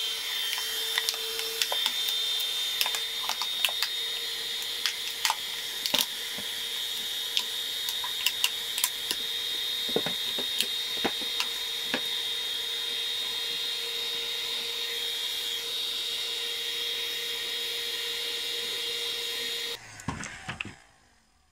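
Electric heat gun running with a steady whine and fan hiss, blowing hot air to shrink a plastic bottle onto a spring, with scattered sharp ticks throughout. About twenty seconds in it is switched off and its fan winds down.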